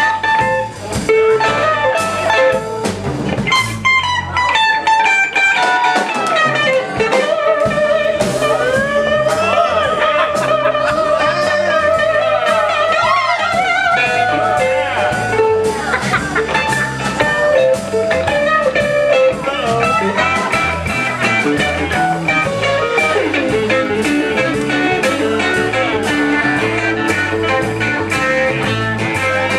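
Live blues-rock band playing an instrumental passage: electric guitar leads with bent, wavering notes over a steady drum beat.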